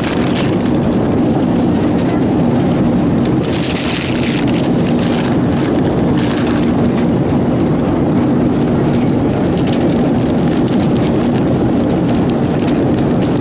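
Airliner cabin noise in flight: a loud, steady drone with a low hum running under it, and a short rustle about four seconds in.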